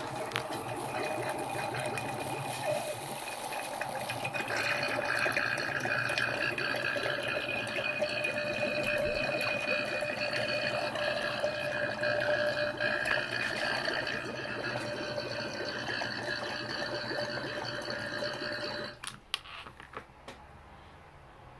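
A small DC diaphragm water pump runs from a power bank, a fast, steady mechanical buzz with water running through its tubing. It grows louder about four seconds in and cuts off suddenly near the end, followed by a few clicks.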